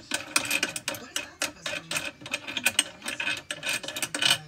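Rapid, irregular clatter of clicks and knocks from a hand tapping and handling the plastic cover of a Mono X resin 3D printer, several hits a second.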